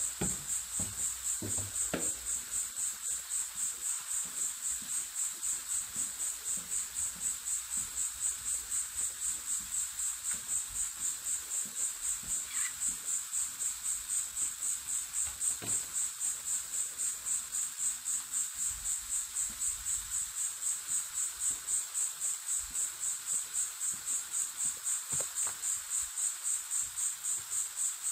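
A cricket chirping steadily, a high pulsing note repeated about two to three times a second without a break, with faint rustles and steps in dry leaf litter beneath it.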